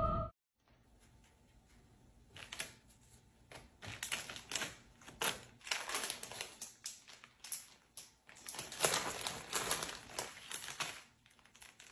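Food packaging crinkling and items tapping on a stone kitchen countertop as they are handled, a faint irregular run of short crackles and taps.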